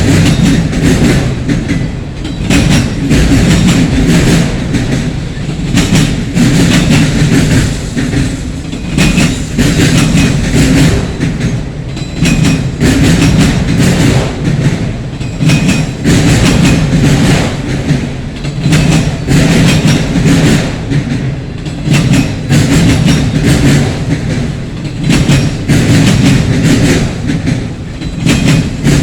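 Freight train cars rolling past close by: steel wheels clicking over rail joints in a repeating rhythm over a steady low rumble, the loudness swelling and dipping every couple of seconds as each car's wheel sets go by.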